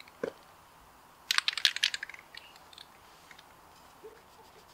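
Spray paint can shaken in a quick burst about a second and a half in, its mixing ball rattling as a cluster of sharp clicks, with a few single clicks before and after.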